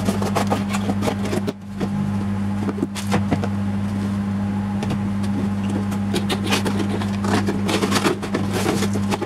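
Cardboard toy boxes being handled and opened: a busy run of irregular scrapes, taps and rustles over a steady low hum.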